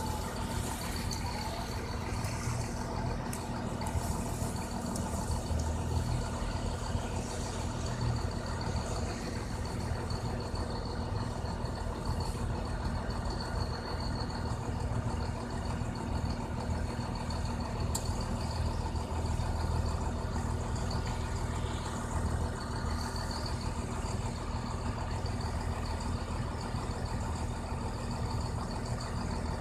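Steady low hum of an idling vehicle engine, with faint constant higher whines above it.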